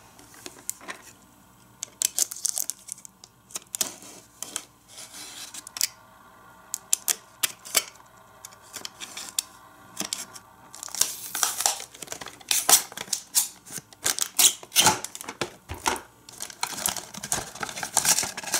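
A cardboard toy box being cut open with a utility knife and its card insert handled: many small clicks and taps, with longer scraping, tearing stretches about eleven seconds in and again near the end.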